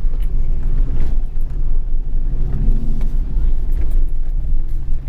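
Jeep Grand Cherokee WJ's V8 engine running at low revs as it crawls over rocks, a steady low drone with a few light knocks and clicks.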